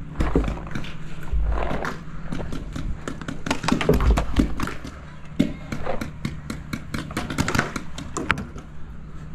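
Paintball markers firing: irregular sharp pops, quick strings of them in places, with a few low thumps about a second in and about four seconds in.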